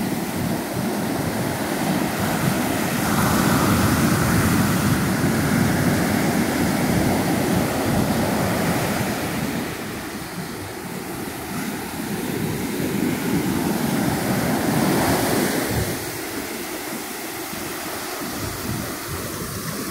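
Pacific Ocean surf breaking and washing up the beach, a continuous rushing noise that swells louder and eases off as each set of waves comes in.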